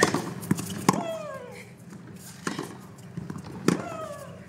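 Tennis rally: the serve and then racquets striking the ball roughly every one to one and a half seconds. Twice a player lets out a long grunt that falls in pitch right on the hit.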